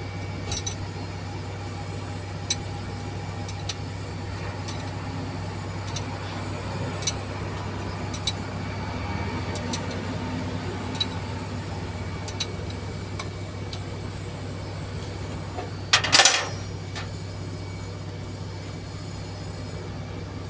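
Wrench and metal hand tools clinking on engine parts in a crawler crane's engine bay: light separate clinks every second or two, and a louder metallic clatter about sixteen seconds in. A steady low machine drone runs underneath.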